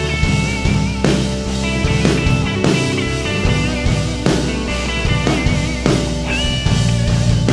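Pop-rock band playing an instrumental stretch between sung lines: a drum kit keeps a steady beat with bass and guitar holding sustained notes, and a wavering high melody line rides on top.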